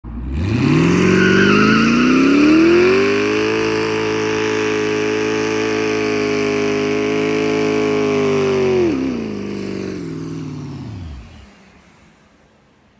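Twin-turbocharged V8 of a GMC Sierra Denali pickup revving hard during a smoky burnout, its note climbing over the first few seconds and then held steady at high rpm. About nine seconds in the revs drop sharply and the engine sound dies away.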